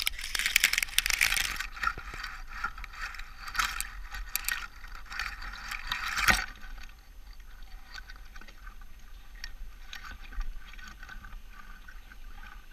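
Douglas fir branches and needles rustling and crackling close to the microphone, loudest in the first second and a half. The rustling carries on in bursts for about six seconds, then fades to a fainter crackle.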